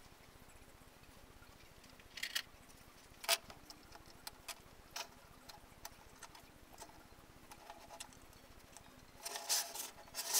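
Plastic spring clamps being handled and clipped onto a small wooden model as freshly glued side walls are clamped: scattered light clicks and taps, with a busier run of clicks near the end.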